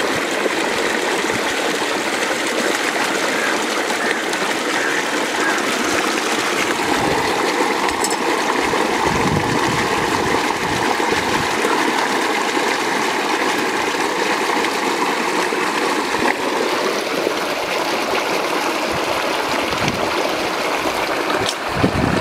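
Water flowing steadily along a shallow earthen channel, a continuous even rush with no breaks.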